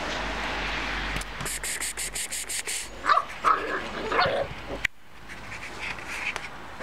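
Bernese mountain dog puppies play-fighting, giving a cluster of short yips and barks about three seconds in.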